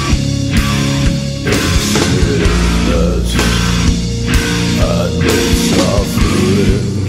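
Goth rock band music without vocals: a steady drum beat under sustained bass and guitar chords.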